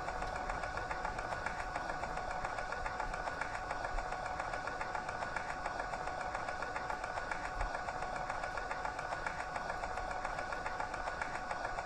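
Tape recorder running: a steady mechanical whir of the motor and tape transport, with a constant hum and a fine, rapid flutter.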